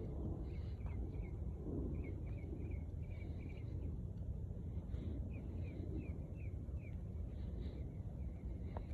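A songbird chirping in runs of short, quickly repeated notes, over a steady low rumble of wind on the microphone.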